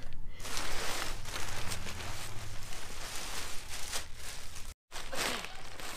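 Black plastic trash bag rustling and crinkling as it is handled around a newspaper-stuffed body, a steady crackly rustle broken by a split-second gap about three-quarters of the way in.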